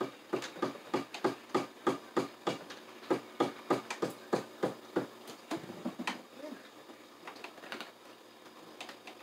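Hand work inside a breaker panel: a steady run of sharp clicks, about three a second, for about five seconds, then a few scattered clicks.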